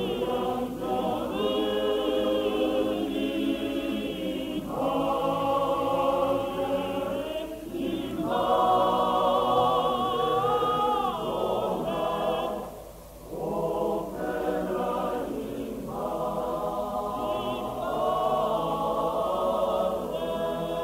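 Men's choir singing a German part-song a cappella in sustained phrases, with a brief breath pause between phrases about two-thirds of the way through.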